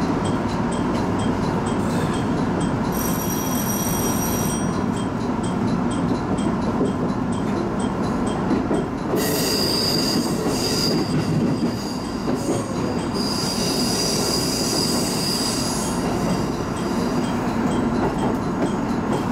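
Train running on rails with a steady rumble. High wheel squeal rings out briefly about three seconds in, then again for several seconds through the middle.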